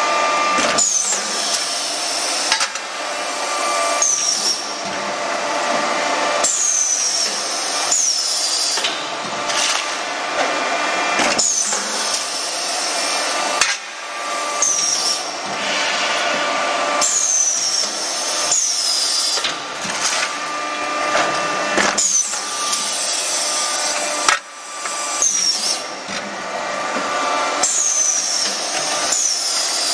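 Concrete tile press machine running with a steady motor noise as it cycles. Short falling whines come back every few seconds, often in pairs, and now and then a sharp knock of metal parts is heard.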